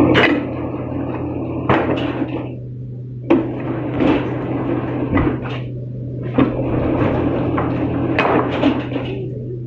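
A machine running with a steady low hum, with irregular metallic knocks and clatters about every second or two.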